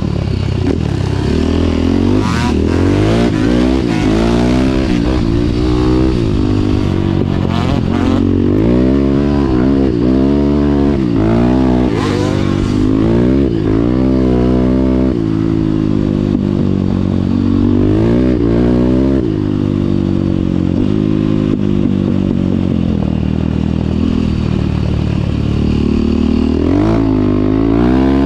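Single-cylinder dirt bike engine idling and being revved hard again and again, its pitch sweeping up and falling back with each throttle blip.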